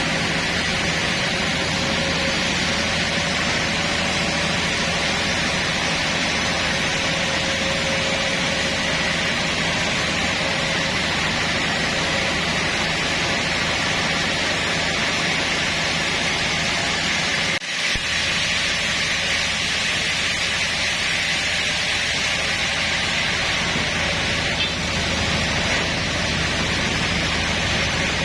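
Sawmill machinery running steadily: a loud, even noise with a faint steady whine, broken by a momentary drop about two-thirds of the way through.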